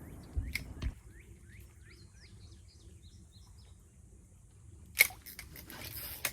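Outdoor scene with two soft knocks of handling at the start, then a run of short, quick bird chirps, and a sharp click about five seconds in followed by rustling handling noise.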